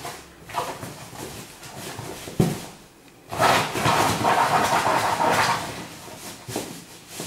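A small terrier digging and chewing at a fabric-covered dog bed: scratchy scrabbling and rustling of the cloth, with a single thump about two and a half seconds in and a louder, busier spell of scratching from about three and a half to five and a half seconds.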